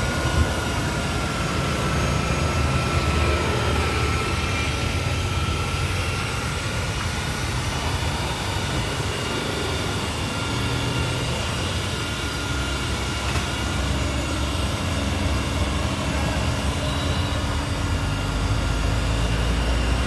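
Electric car polisher running with a foam pad buffing a car's painted door panel: a steady motor whine over a low rumble.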